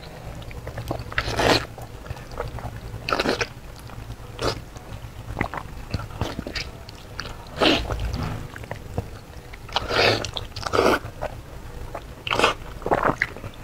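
Close-up bites into a braised meat joint eaten by hand, with chewing and tearing of the meat. The bites come as sharp, irregular bursts every second or two.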